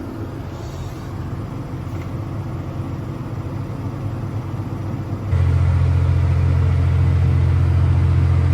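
Steady low engine drone of farm harvest machinery. About five seconds in it jumps suddenly to a much louder, deeper hum.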